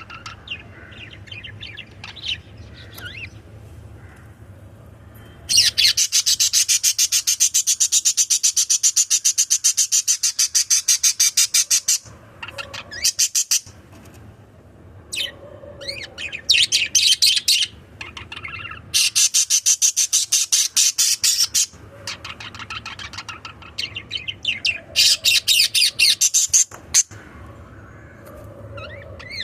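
Pet budgerigars chirping and chattering: several loud runs of fast, rapidly repeated high chirps, the first lasting about six seconds, with softer scattered chirps in between.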